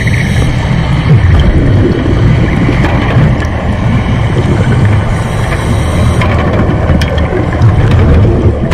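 Underwater noise picked up by a camera in its housing: a loud, steady, muffled low rumble of moving water with a few faint clicks.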